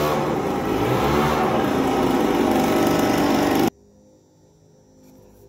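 An engine running steadily, which cuts off abruptly about three and a half seconds in, leaving only faint room noise.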